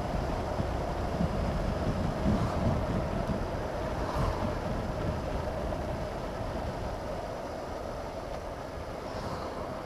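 Wind rushing over a helmet-mounted camera on a moving Honda CB500X, with the bike's parallel-twin engine running steadily underneath. An oncoming car swishes past about four seconds in.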